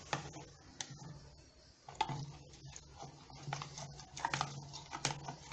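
Homemade glue-and-detergent slime being stirred with a spoon in a pot: irregular sticky squelches and light clicks of the spoon.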